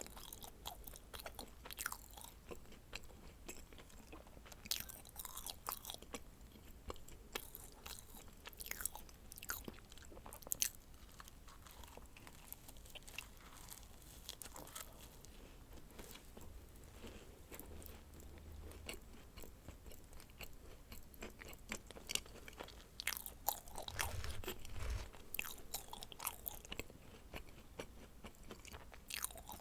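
Close-miked chewing of dacquoise: irregular small crunchy clicks and soft mouth sounds, thicker in stretches and sparser in between.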